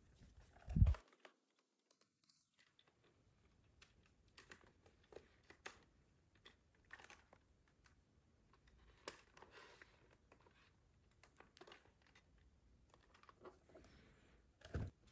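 Unboxing handling sounds: packaging and plastic being handled, with scattered small clicks and crinkles. There is a soft thump about a second in and another near the end.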